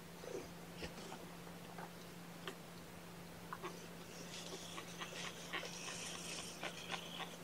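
Very young kittens mewing in thin, high squeaks that start about halfway through and come thick and fast, over scattered soft clicks and rustles.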